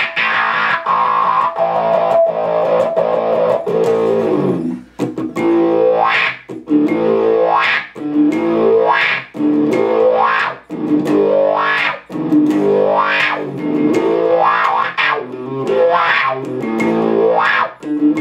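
Electric guitar played through a vintage Sola Sound Colorsound Wah+Fuzz pedal with the transistor fuzz on. Distorted chords ring at first. From about five seconds in, each strummed chord is swept upward by the wah in a steady repeating rhythm.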